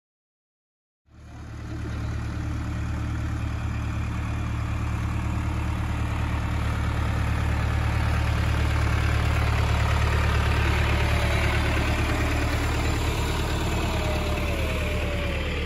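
John Deere farm tractor's diesel engine running steadily as it pulls a hayride wagon, a low, even drone that comes in abruptly about a second in.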